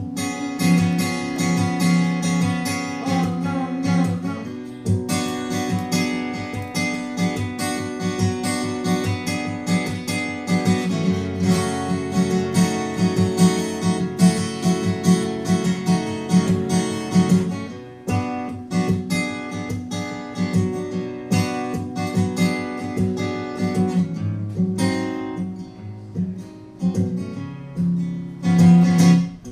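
Acoustic guitar strumming an instrumental break between verses of a folk song, with no singing.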